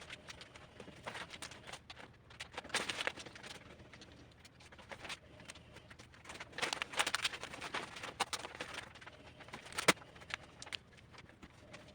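Adhesive paper rustling and crinkling as it is handled and pressed onto a surface, with irregular light taps and one sharp click near the end.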